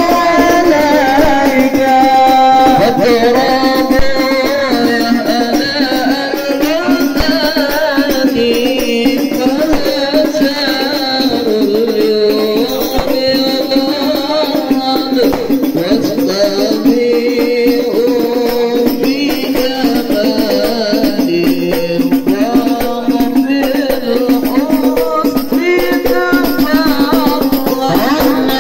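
Sholawat devotional song sung by a group of voices over hand-beaten frame drums (rebana) played in a steady, busy rhythm.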